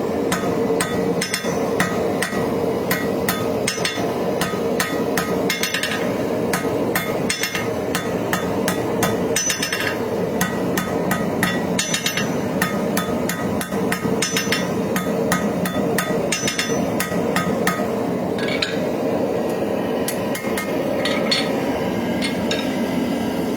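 Hammer blows on hot knife steel at the anvil, coming fast and evenly, several strikes a second, then thinning to a few scattered strikes after about 18 seconds. A steady rushing noise runs underneath.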